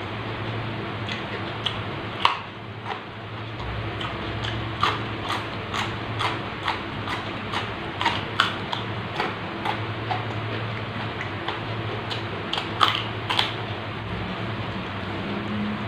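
Crisp, irregular crunching and chewing of raw vegetables and leaves, close to the microphone, over a steady low hum.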